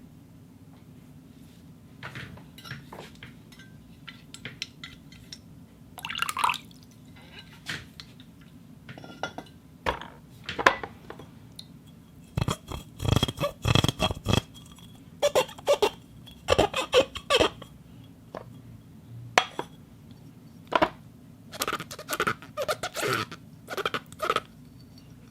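Glass being clinked, scraped and squeaked to make sound effects, in a long string of short, irregular clinks and squeaks. Some of them carry a brief pitch. A steady low hum sits underneath.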